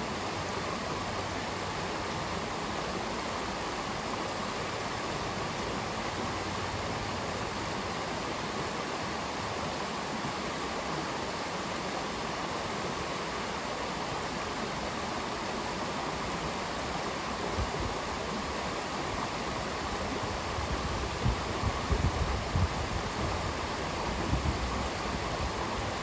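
Shallow rocky stream rushing steadily over stones and small cascades. A few low thumps break in during the last third.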